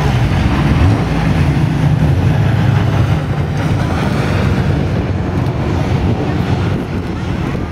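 Saloon race cars driving past at racing speed, engines at high revs, with the engine pitch bending up and down as a car goes by near the start and engine sound continuing throughout.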